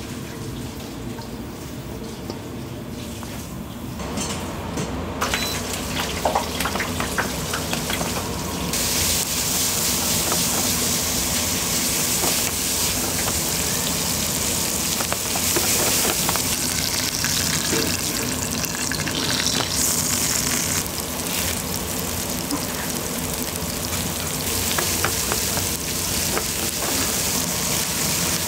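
Food sizzling in a hot frying pan. The sizzle comes up strongly about nine seconds in and runs on steadily. Before that there is a lower kitchen hum with a few short clicks.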